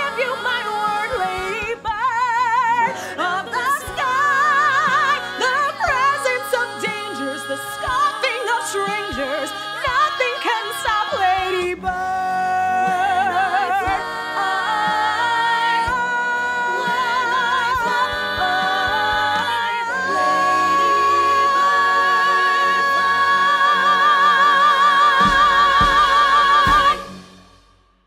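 A woman belting the closing phrases of a musical-theatre song, with heavy vibrato. It ends on a long held high note that cuts off about a second before the end.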